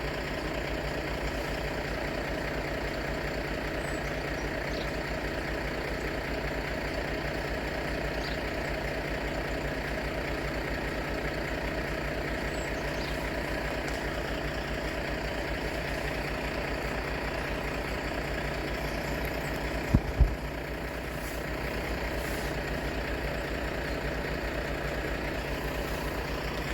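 A heavy engine idling steadily with a low, even rumble. Two short low thumps come close together about twenty seconds in.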